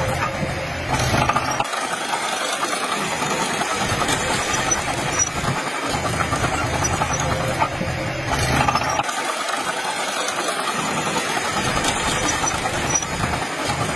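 Dump truck's diesel engine running steadily, its low rumble dropping away twice for a second or two.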